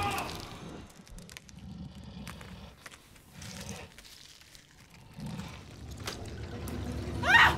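Horror-film sound design: a loud sound fades out in the first half second, then low rumbling swells and faint scattered clicks follow. Near the end comes a short, loud sound rising steeply in pitch.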